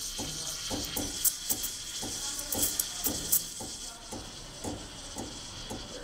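Corrima espresso machine's steam wand frothing cold whole milk in a stainless steel pitcher: a steady hiss, with short irregular crackles several times a second as air is drawn in at the milk's surface.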